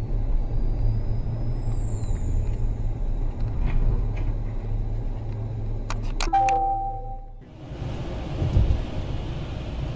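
Steady low engine and road rumble inside a moving car. About six seconds in there are a few sharp clicks and a short electronic chime. After a cut, the rumble gives way to a steadier road and tyre hiss from a car driving on a wet road.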